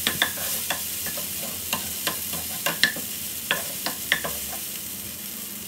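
Onion, tomato and ginger-garlic paste sautéing in oil in a frying pan, with a steady sizzle. A wooden spatula stirs through it, giving irregular clicks and taps against the pan.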